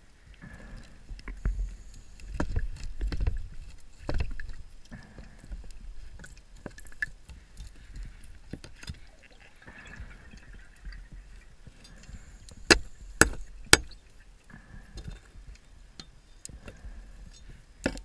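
Scuba diver breathing through a regulator underwater: each inhalation hisses and each exhalation bursts out as bubbles, in a slow repeating rhythm. About two-thirds of the way in come three sharp clicks about half a second apart, like hard gear knocking.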